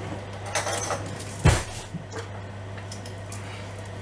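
Kitchen utensils and containers being handled on a countertop: a short rustle, then a sharp knock about one and a half seconds in and a lighter tap soon after, over a steady low hum.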